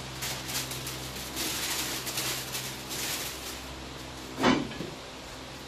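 Masking paper and plastic sheeting crinkling and rustling as tape is pressed down around a car's front fender, then one short, loud sound about four and a half seconds in, over a steady low hum.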